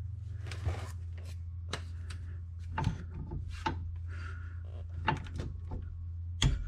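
Click-type torque wrench tightening a brake caliper slide bolt: scattered clicks and knocks of the wrench and bolt, and near the end a sharp click as the wrench breaks at its 17 ft-lb setting, the sign that the bolt is at torque. A steady low hum runs underneath.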